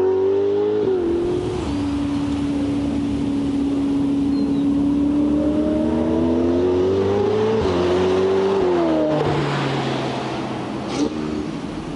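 Ferrari 488 Pista's twin-turbo V8 through a Novitec Inconel exhaust with sport catalysts and the exhaust valves open, accelerating hard: the note climbs steadily and drops sharply with each upshift. Near the end the car passes by and the sound fades away.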